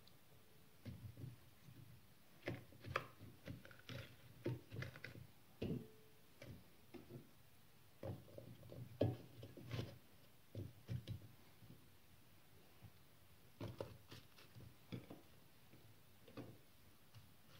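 Faint, irregular knocks and light thuds of vegetable pieces being set by hand into a cast iron pot, with small clicks in between.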